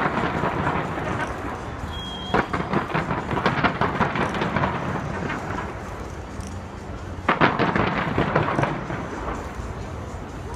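Aerial fireworks going off in two volleys of rapid bangs and crackle, one about two seconds in and another just after seven seconds, over a continuous low rumble of booms.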